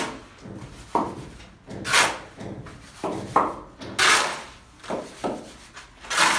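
A series of sharp knocks, roughly one a second and unevenly spaced.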